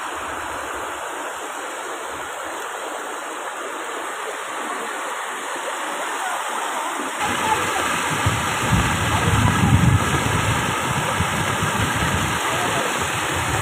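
Muddy floodwater rushing steadily through a flooded plantation. A low rumble joins about halfway and the sound grows a little louder.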